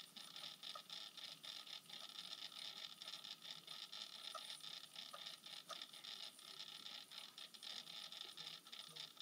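Faint steady whir of a tornado lamp's small motor spinning the water into a vortex, with light, irregular ticking several times a second.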